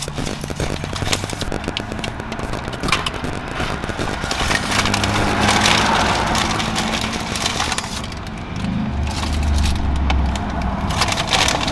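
Paper food packaging crackling and rustling as it is handled inside a car, over the low hum of the car's engine running.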